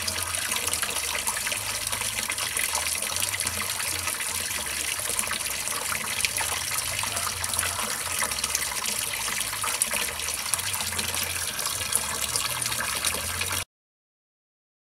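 Water spilling steadily over the rim of an overfull tub and splashing onto a wet floor, with small ticks and scrapes from a knife peeling cassava roots. It cuts off suddenly near the end.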